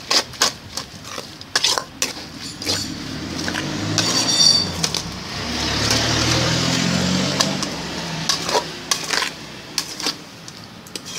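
A spoon scraping and clinking against the side of a metal pot as enoki mushroom larb is tossed, in irregular clicks. A low rumble swells and fades through the middle.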